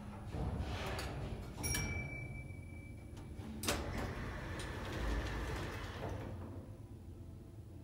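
A 1971 Express Lift Co. lift arriving at the landing: a high tone sounds for about a second a couple of seconds in, a sharp clunk follows near the middle, then the stainless steel landing doors slide open and the sound fades away.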